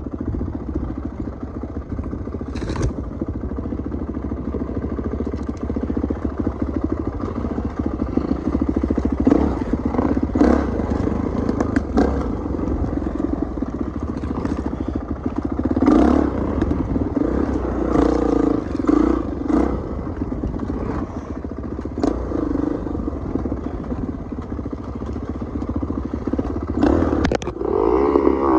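Dirt bike engine running on a rough trail, the note rising and falling with the throttle and a louder rev near the end. Frequent sharp knocks and clatter from the bike working over rough ground.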